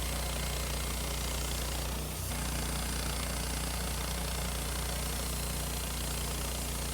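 Woodmizer LT15 band sawmill's engine running steadily, with a brief dip about two seconds in.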